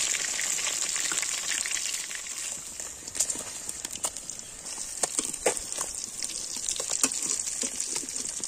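Fish pieces deep-frying in hot oil in a metal wok: a steady sizzle that eases a little after about two seconds. Sharp taps and scrapes of a metal spatula and wire strainer against the wok sound several times as the fish is turned and lifted.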